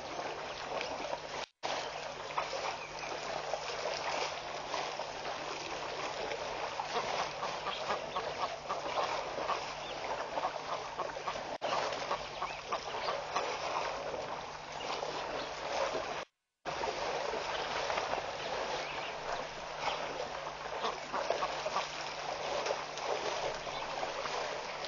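Waterhole ambience: a dense, continuous chatter of many birds calling, over a steady low hum. The sound cuts out completely twice, briefly.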